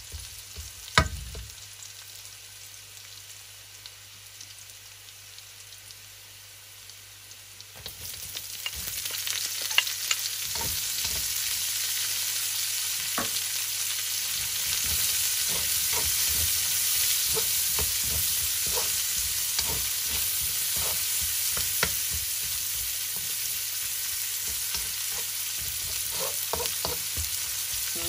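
Garlic and onion sautéing in hot oil in a wok: a sizzle that swells louder about eight seconds in, as the onion goes in. A utensil knocks and scrapes against the wok as it is stirred, with one sharp knock about a second in.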